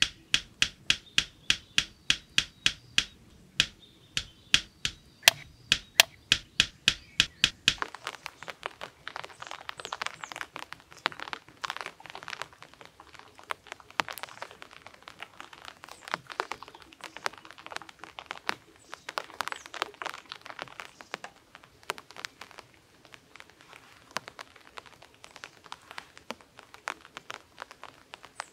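Hammer driving nails into a wooden stick frame: sharp, regular blows, about three a second. About eight seconds in they stop, giving way to lighter wooden clicks and rustling as thin branches are handled and laid across the seat.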